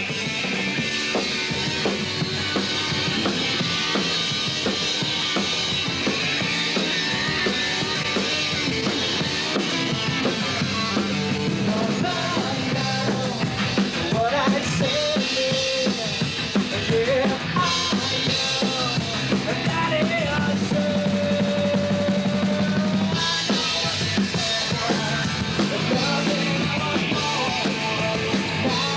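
A modern rock band playing live: a full drum kit drives the beat under bass and electric guitar, with a long held note a little past the middle.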